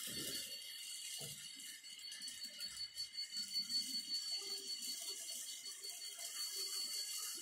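Long model freight train running on the layout's track, a light steady rattle of wheels on rails. A couple of soft knocks in the first second or so.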